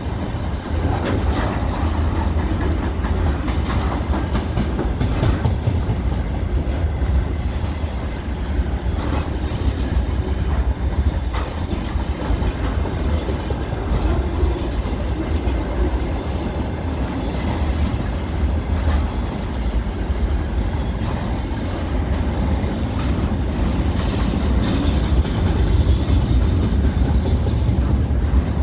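Freight wagons of a long container train rolling past, with a steady heavy rumble and the clickety-clack of wheels over rail joints. A faint high wheel squeal comes in near the end.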